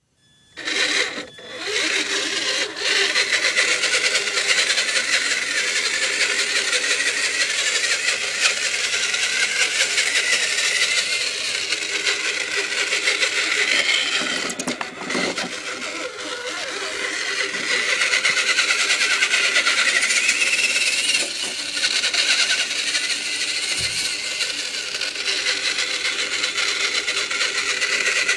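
Electric motor and gearbox of a Tamiya CR-01 radio-controlled crawler truck whining as it drives, the pitch rising and falling with the throttle; it starts about a second in and eases off briefly about halfway through.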